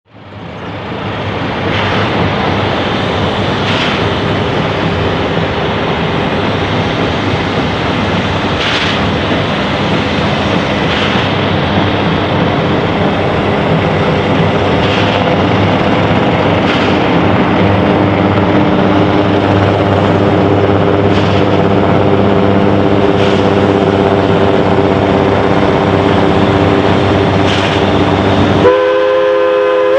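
Narrow-gauge train led by Baldwin 2-6-2 steam locomotive No. 12 approaching, a steady running rumble with several held tones and a faint sharp sound every couple of seconds. About a second before the end the locomotive's steam whistle starts to blow.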